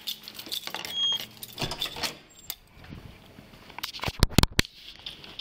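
Rustling and jingling of keys and duty gear against a body-worn camera as the wearer walks through a doorway, with a short high electronic beep about a second in, like a door's card reader, and a few loud sharp clacks near the end, as of the door handle and latch.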